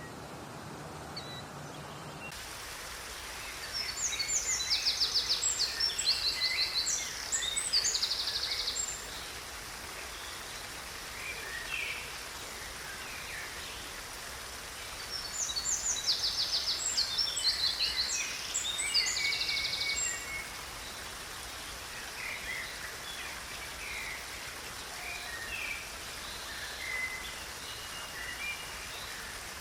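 Songbirds singing in two long bouts of rapid, high trills and chirps, with scattered single chirps in between, over a steady background hiss. A low hum gives way to a broader hiss about two seconds in.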